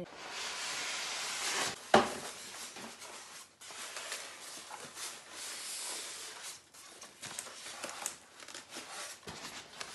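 Polystyrene foam packing blocks and plastic wrap rubbing, scraping and rustling as they are pulled apart and lifted off a boxed appliance. There is a sharp knock about two seconds in.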